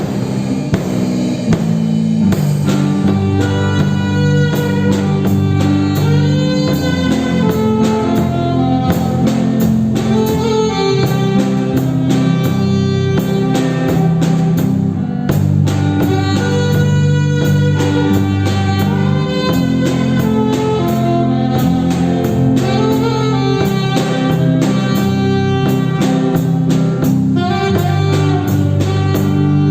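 A band playing blues-style music, with guitar and a drum kit keeping a steady beat.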